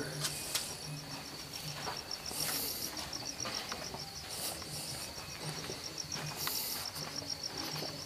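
Crickets chirping: a steady, fast, pulsing high trill, with a few brief scuffs of footsteps on a dirt floor.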